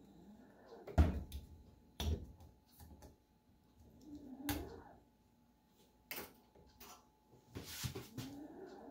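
Household knocks and clacks of things being handled in a kitchen, with several separate sharp knocks. The loudest comes about a second in and a cluster comes near the end.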